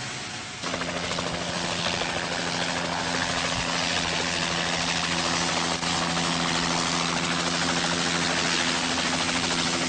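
Light helicopter hovering just above the ground, its engine and rotor running with a steady low hum under a dense rushing rotor noise. The sound starts abruptly about half a second in.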